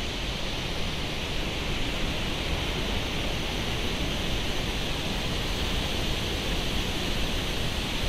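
Dunhinda Falls: a loud, steady rush of falling water with a strong hiss.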